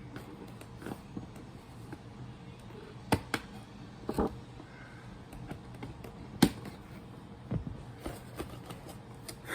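Scattered clicks, taps and knocks of a doll's plastic and cardboard packaging being handled and pulled apart, with the loudest knock about six seconds in.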